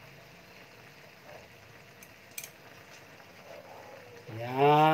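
Chicken pieces simmering in marinade in a pan on the stove, a faint steady bubbling, with one click about two and a half seconds in. Near the end a loud, drawn-out voice rises and falls for just under a second.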